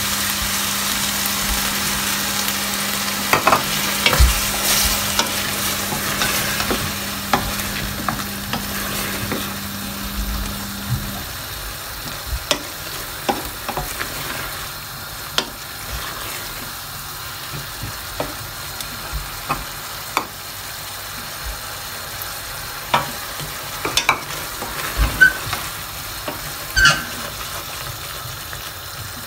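Water added to a hot pan of fried chicken and potato masala sizzles loudly at first, then settles to a quieter sizzle. A cooking spoon stirs and scrapes against the stainless steel pan in scattered clicks, and a faint low hum stops about eleven seconds in.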